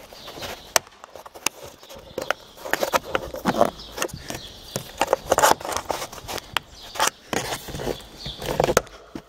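Irregular clicks and taps of a screwdriver prying at a plastic sun-visor clip cover, with rubbing and handling noises of the plastic trim in between.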